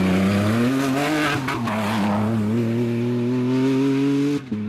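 Rally car engine held at high, fairly steady revs, its pitch wavering slightly, with a brief rush of noise about a second and a half in and a short break near the end.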